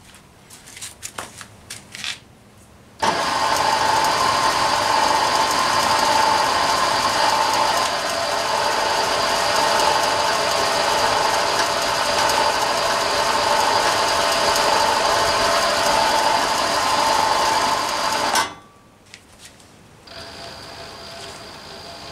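A few light clicks, then about three seconds in a lathe belt-driven by a 550 W brushless servo sewing-machine motor comes on abruptly: a loud, steady running whirr of motor, belt and pulleys with a constant whine. It cuts off sharply near the end, and a much fainter steady running sound follows.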